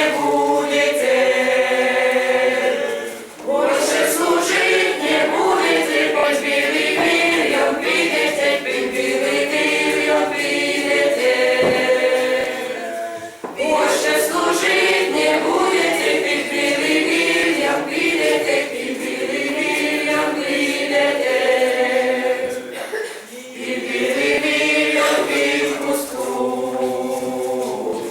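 A group of voices singing a song unaccompanied, in long phrases with a short breath about every ten seconds.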